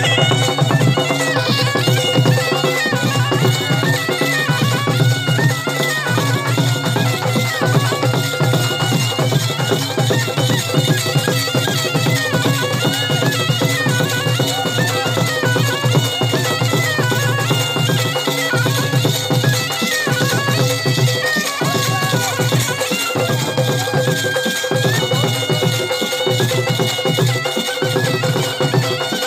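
Gudum baja folk band playing: a reedy wind instrument carries a wavering melody over a steady drone, with continuous drumming.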